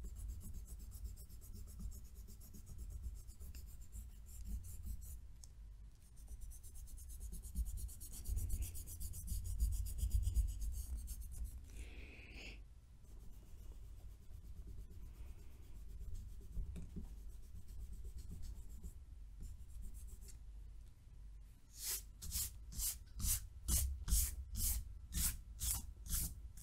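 Rubber eraser rubbing back and forth across drawing paper, erasing pencil lines. Near the end the strokes turn quick and distinct, about two a second.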